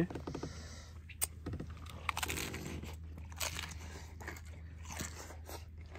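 A person biting into and chewing a crisp corn tostada piled with ceviche, making a series of short, sharp crunches.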